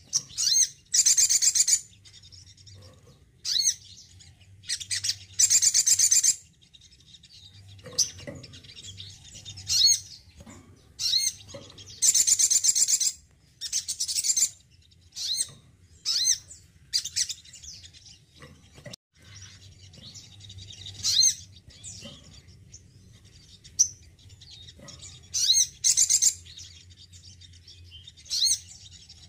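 Male olive-backed sunbird singing: short bursts of high, rapid twittering trills, each under a second long, repeated every second or two. A faint steady low hum runs beneath.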